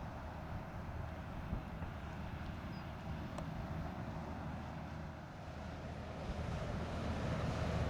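Diesel engine of a passing fishing boat running steadily, a low rumble with a faint steady whine above it, growing louder near the end as the boat comes closer.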